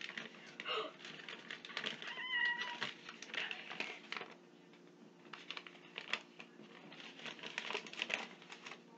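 Paper rustling and crinkling in handling as a rolled-up slip is unrolled, heard as a run of small crackles and taps. About two seconds in there is a short high-pitched cry.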